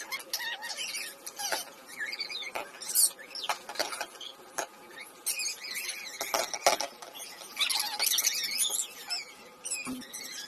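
Thai omelette frying in hot oil in a wok: a crackling sizzle, with many scattered sharp clicks and spits.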